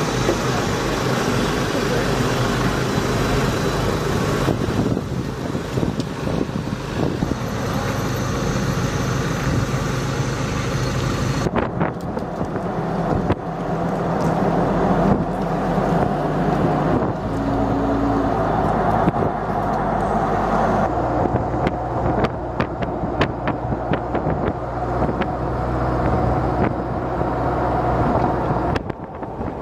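Engines of Army Infantry Squad Vehicles, light open-frame military trucks, running steadily as the convoy drives along a road, with road and engine noise throughout. The engine tone changes pitch a few times, and there are many light clicks and knocks in the later part.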